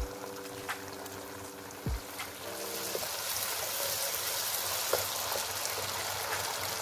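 Thick chilli sauce frying in a non-stick pan and stirred with a wooden spoon, with two knocks of the spoon in the first two seconds. The sizzling gets louder about two and a half seconds in, as the sauce is spread across the pan.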